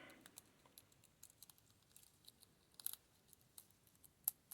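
Faint, scattered clicks of a lock pick and tension wrench working the pins of a Yale pin-tumbler lock, with a small cluster of clicks about three seconds in and a single sharper click near the end.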